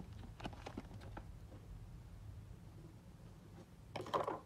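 Faint handling of trading cards and pack wrappers: a few soft clicks, then a short rustle about four seconds in, over a low room hum.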